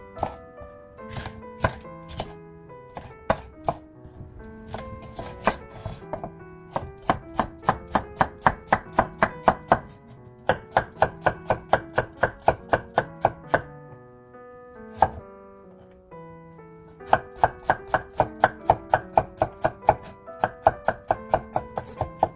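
Chef's knife chopping green bell pepper and then slicing carrot on a wooden cutting board: sharp knocks of the blade striking the board, scattered at first, then quick runs of about five chops a second.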